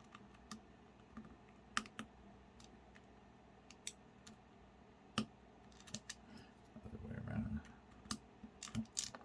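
Freshly lubed NK Dry Series yellow mechanical keyboard switches with clear keycaps being pressed one key at a time: scattered, irregular clacks, some in quick pairs, with a muffled low thump of handling partway through.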